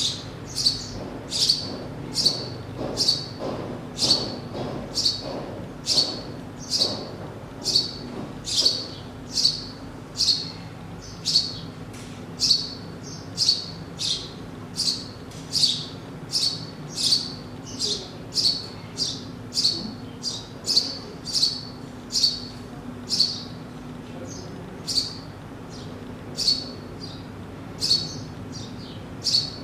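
Small songbird chirping steadily: one short, downward-sweeping chirp repeated a little more than once a second.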